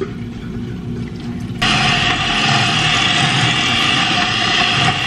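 Electric hand mixer running steadily with its beaters in a bowl, creaming shortening and molasses for gingerbread dough. It starts after a quieter gap of about a second and a half.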